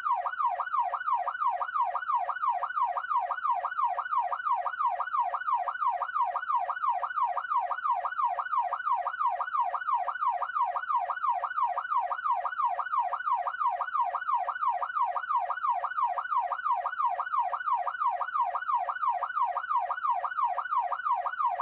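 Police car siren in its fast yelp pattern: a steady, rapid up-and-down wail of about three sweeps a second.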